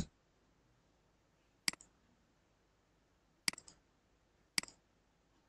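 Computer mouse button clicking, three single clicks spaced about a second or two apart, each with a fainter tick as the button is released.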